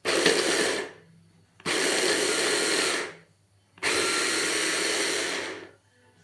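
Braun hand blender with its chopper bowl attachment, run in three pulses chopping onion and garlic. The first burst is short and the other two last about one and a half and two seconds, with brief quiet gaps between them.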